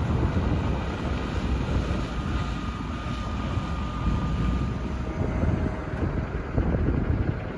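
Heavy truck engine running with a steady low rumble, and wind buffeting the microphone.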